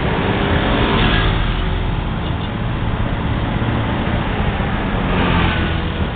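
Street traffic: engines of a pickup truck, cars and motor scooters running and passing close by.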